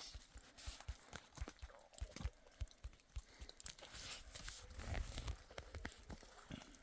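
Faint, irregular soft thuds and crunches, several a second, with a louder cluster about five seconds in.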